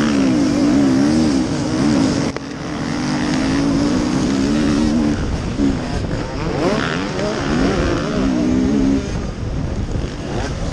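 KTM enduro dirt bike engines racing hard in a pack, heard from on board the rider's own bike: the engine note rises and falls again and again with throttle and gear changes. The sound drops sharply for a moment about two seconds in.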